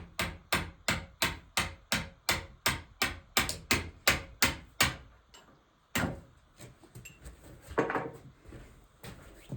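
Hammer tapping a part off a shaft of an NV4500 manual transmission during teardown, in a steady run of sharp blows about three a second for some five seconds. Then one more knock and fainter handling clatter.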